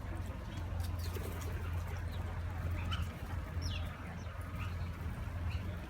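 Wild birds calling: short, high, falling chirps, several of them in the second half, over a steady low hum.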